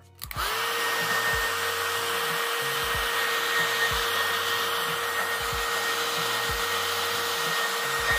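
Hand-held hair dryer switched on about half a second in, its pitch rising briefly as the fan spins up, then running at a steady whine over the rush of blown air.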